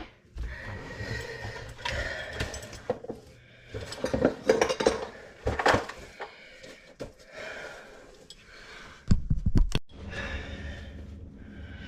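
Clinking and knocking of plumbing parts and tools being handled while reassembling a sink drain trap, with a heavier low thud about nine seconds in.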